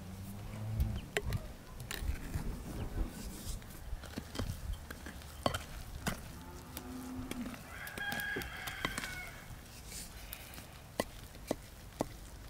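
Wooden spatula stirring dough in a glass bowl, with repeated small knocks and scrapes against the glass. Farm animals call in the background: a deep call near the start and a higher call about two-thirds of the way in.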